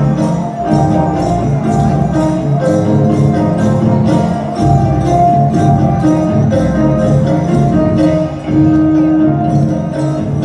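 Dao-style jingling hand bells shaken in a steady rhythm, about four shakes a second, over a music track with a held melody.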